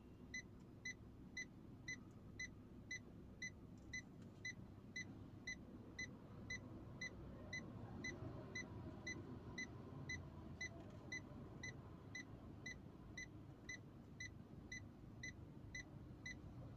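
Car reverse parking sensor beeping in steady, evenly spaced short beeps, about two a second, with a faint low engine hum. The intermittent single-beep warning: an obstacle is behind the car within range, but not yet close enough for the continuous beep.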